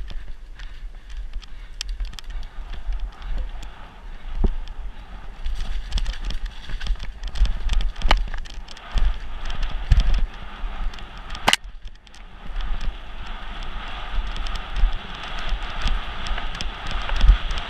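Mountain bike descending a dirt trail at speed, heard from an onboard camera: wind and vibration rumbling on the microphone and tyres hissing over dirt, with frequent clicks and knocks from the bike over roots and rocks and one sharp knock about two-thirds of the way in.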